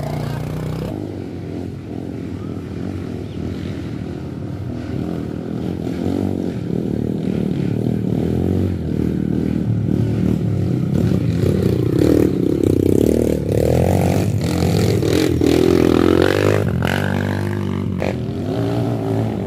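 Dirt bike engines running on a muddy trail, with the throttle opened and closed so the engine note rises and falls, swelling twice in the second half as the bikes come closer.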